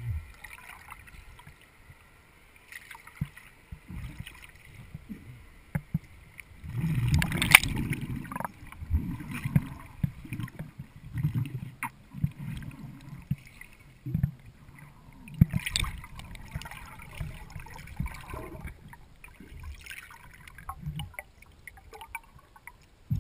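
Muffled underwater sound around a submerged camera: irregular low water rumbles and sloshing from swimming movement, with scattered clicks and knocks. It swells louder about seven seconds in and again around fifteen seconds.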